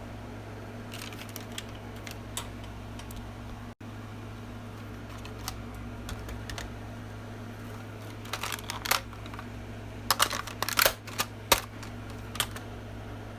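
Scattered sharp plastic clicks and rattles of a toy gun being handled and reloaded, a few at first, then bunching together about eight seconds in and again from about ten to twelve seconds, over a steady low hum.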